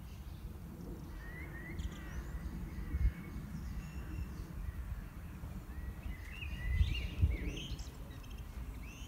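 Songbirds chirping and calling in short gliding notes, in two bouts. Under them runs a steady low rumble, with a couple of low thumps that are the loudest sounds.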